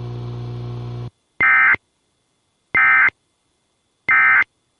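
A steady low hum cuts off about a second in. It is followed by three short, identical digital data bursts about 1.3 seconds apart: the Emergency Alert System's end-of-message (EOM) SAME tones, which mark the end of the alert.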